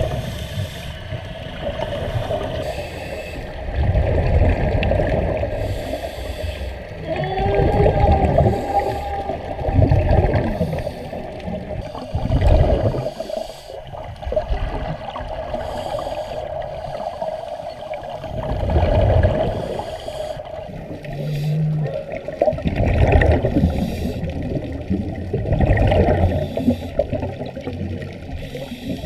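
Scuba divers' regulators heard underwater: exhaled bubbles bursting out in muffled gurgling surges every few seconds, over a steady underwater hum.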